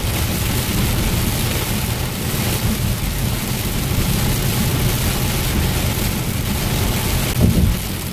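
Heavy rain pouring on a moving car, with its tyres running through standing water and road and engine rumble, heard from inside the cabin. A brief louder surge comes about seven and a half seconds in.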